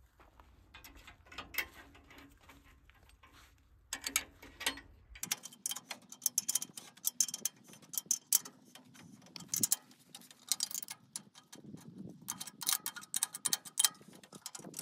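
Quick metallic clicks and taps of a spanner being worked on the mounting bolts of a tractor-mounted cotton shredder, coming in rapid runs from about four seconds in.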